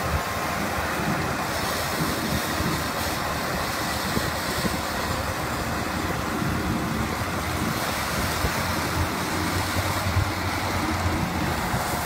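Crawler rice combine harvesters running steadily while cutting rice: engines and threshing machinery making a dense, even noise with a low hum underneath.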